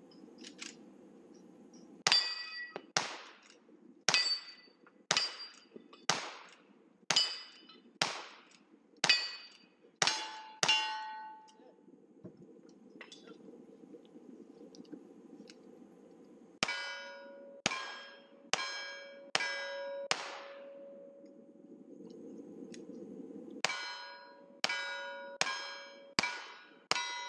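Gunshots hitting steel targets, each hit ringing out. There are ten rifle shots about one a second, a pause, then ten single-action revolver shots in two strings of five.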